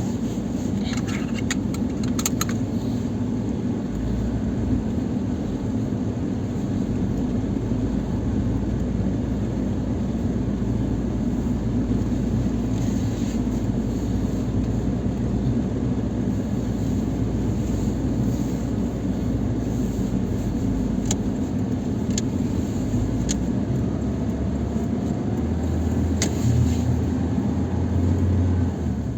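Lada Niva Travel's four-cylinder engine running steadily, with a few sharp clicks. Its low hum grows stronger near the end.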